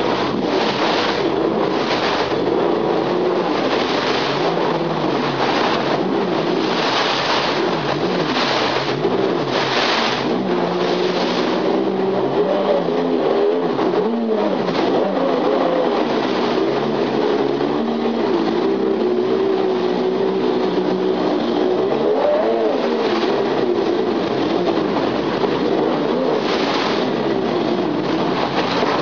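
Jet ski engine running and revving up and down, its jet pump churning the water of a small hot tub into spray. The rushing water surges several times in the first ten seconds or so.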